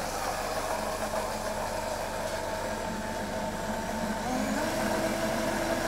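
Optimum high-speed blender running steadily, puréeing thawed raspberries with syrup into a coulis. Its motor pitch rises about four seconds in as the speed goes up.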